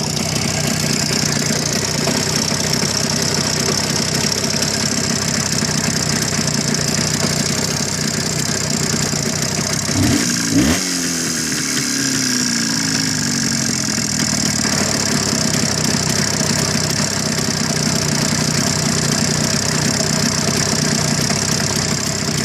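Jawa 634's two-stroke twin engine idling, given one quick blip of the throttle about halfway through that rises and falls back to idle. The owner reports a knock in the engine that shows up at idle after the throttle is closed.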